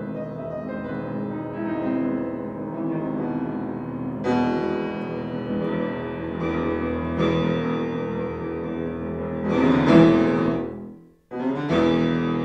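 Solo piano improvisation evoking wind, with ringing chords struck every second or two. It builds to a loud swell about ten seconds in, breaks off into a moment of silence, then picks up again with a fresh chord.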